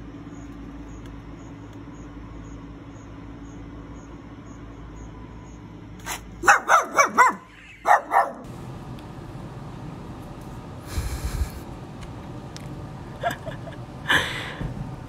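A small dog barking in a quick run of about seven sharp, high yips. A brief harsh sound follows near the end.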